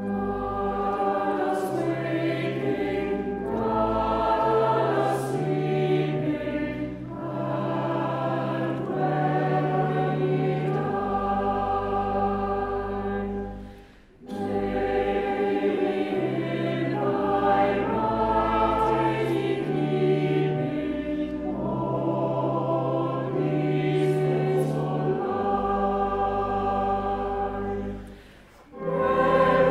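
Choir singing a hymn with pipe organ accompaniment, in long phrases over steady held bass notes, with a brief break about halfway through and another near the end.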